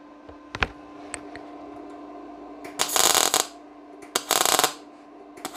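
MIG200 D3 inverter welder striking short MAG tack welds on 0.7 mm steel sheet with 0.8 mm solid wire under argon/CO2 gas. Two short bursts of arc crackle, each about half a second, come about three and four seconds in, and a third starts at the very end, over a faint steady machine hum. The arc runs smoothly at this low setting and makes clean tacks.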